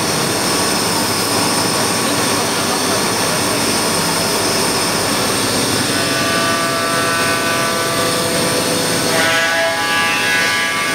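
CNC milling machine cutting a balsa-wood blank: a loud, steady machining noise with a constant high whine. About six seconds in, a pitched tone with several overtones joins and grows stronger near the end.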